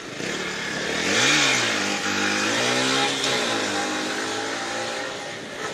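A motor vehicle passing close by on the street, its engine rising and falling in pitch twice as it accelerates, over tyre and traffic noise.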